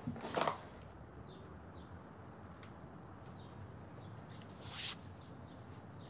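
Faint, scattered bird chirps over a quiet room, with a soft thump at the very start. Near the end comes a brief rustle as sneaker laces are pulled tight.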